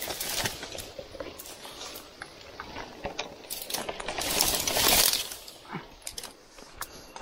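Rustling and crunching of someone moving through dense brush, with scattered small clicks and clinks; a louder rustle swells about four to five seconds in.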